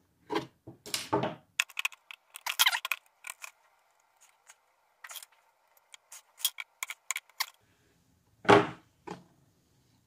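A thin metal pick clicking and scraping against the hard plastic of an electric kettle's lid while a screw cover is pried out, in short irregular clicks. A louder knock comes near the end.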